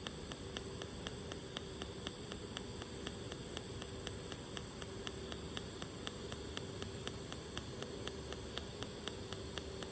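Pulsed DC TIG welding arc on stainless steel: a steady hiss with a faint regular tick about four times a second from the current pulsing.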